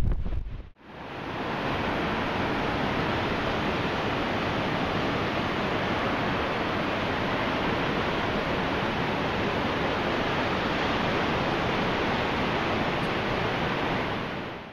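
Steady, even rushing of ocean surf laid over the slideshow, fading in about a second in.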